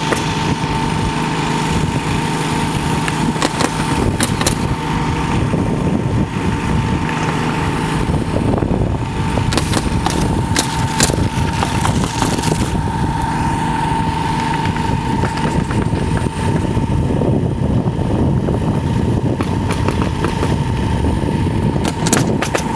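Drone propellers running with a steady whine, heard from the camera aboard it, with several sharp clicks in between.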